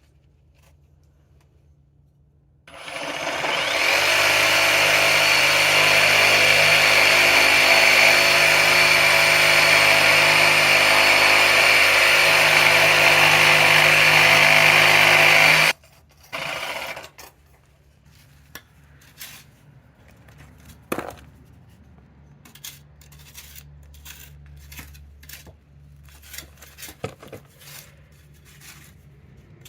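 A power tool running steadily for about thirteen seconds, then cutting off suddenly. A brief second burst follows, then light scraping and tapping.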